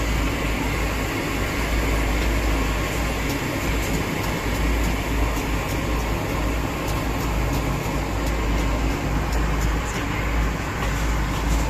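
Steady background din with a strong low rumble and a scatter of faint, light ticks.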